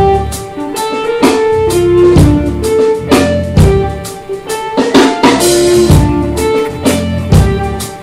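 Soundtrack music: a guitar-and-drum-kit band track with a steady drum beat.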